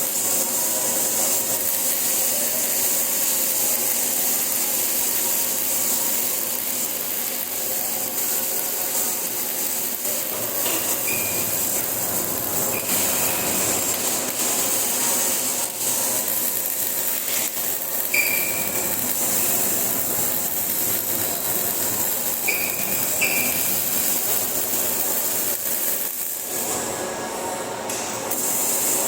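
MIG welding arc crackling steadily, with a brief break about 26 seconds in before the arc strikes again.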